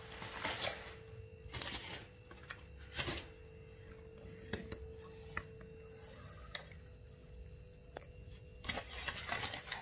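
Grocery vegetables being unpacked and handled: scattered crinkly rustles of packaging and light knocks of produce being set down, busier near the end, over a faint steady hum that stops about six seconds in.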